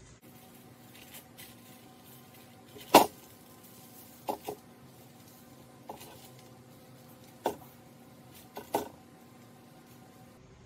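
Dry BBQ rub shaken from a plastic shaker bottle onto a block of cream cheese on a foil-covered rack, with about seven sharp clicks and taps from handling the bottle and the block, the loudest about three seconds in. A faint steady hum runs underneath.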